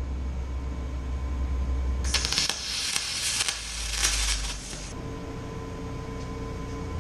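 Electric welding arc on aluminum: a crackling, sizzling hiss that starts about two seconds in and cuts off about three seconds later. A low hum runs before the arc strikes.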